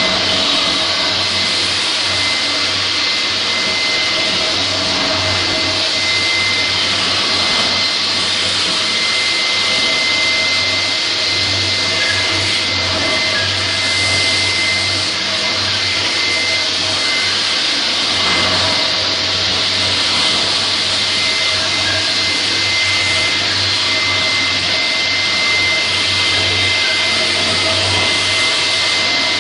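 LINAX K-30 floor grinder and its vacuum dust collector running steadily: a constant rushing machine noise with a thin, steady high whine.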